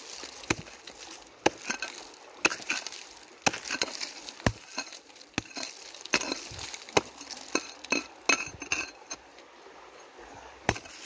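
Small hand hoe chopping into dry, gravelly soil, a sharp clinking strike about once a second, digging out a metal detector target.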